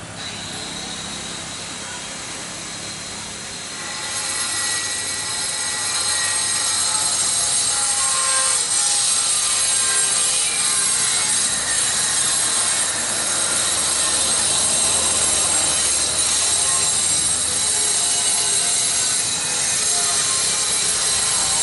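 Airbus A320 jet engines on the landing roll-out: a loud, steady rush with a high whine. It grows louder about four seconds in as the engines spool up, typical of reverse thrust after touchdown.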